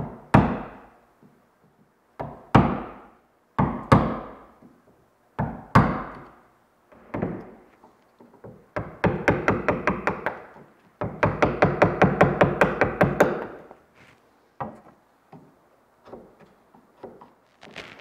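Wood chisel being struck to chop a seat for a deck beam into a boat's wooden shear clamp: single sharp knocks every second or two, then two runs of quick taps, about seven a second, starting about halfway through, before it settles to light ticks.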